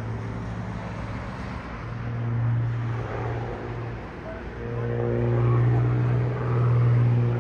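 Single-engine aerobatic propeller plane's engine and propeller droning at a steady low pitch, swelling louder about two seconds in and again for the last few seconds as it dives through its display manoeuvres.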